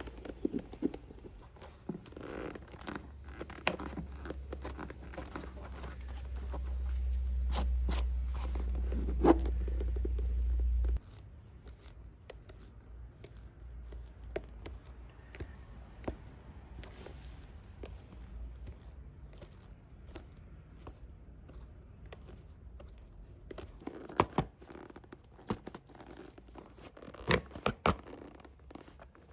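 Hand work on a Red Wing Beckman leather boot: irregular scraping, scratching and tearing sounds with sharp clicks of tools on leather. A low hum builds over the first several seconds and stops abruptly about eleven seconds in.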